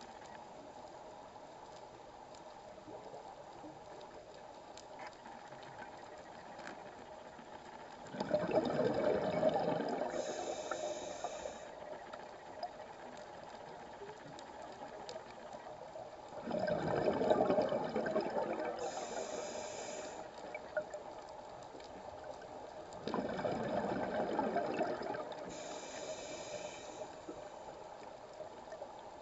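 Scuba diver's breathing heard underwater through the regulator: three breaths about seven or eight seconds apart, each a rush of exhaled bubbles followed by a short hiss of inhalation, over a steady faint underwater hiss.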